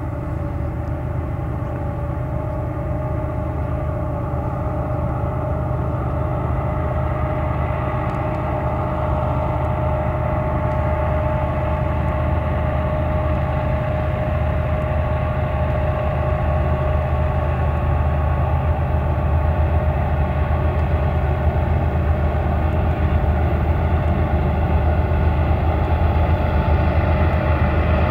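Union Pacific diesel freight locomotives approaching under power: a steady low engine drone with a steady whine above it, growing slowly louder as the lead units near.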